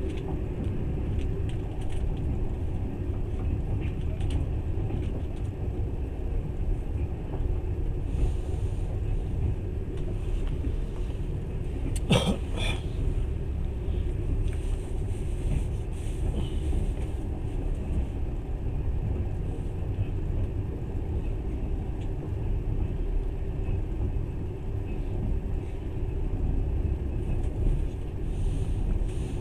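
Moving passenger train heard from inside the carriage: a steady low rumble of the wheels and coach running along the track, with a brief cluster of sharp knocks about twelve seconds in.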